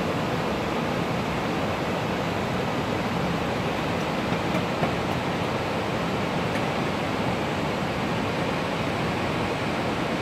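Steady rush of a fast glacial river pouring over boulders, an even unbroken noise of white water.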